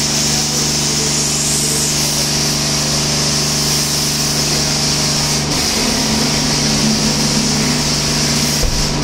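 Pressure washer running with a steady hum while its foam lance sprays a continuous hissing jet of snow foam onto a car.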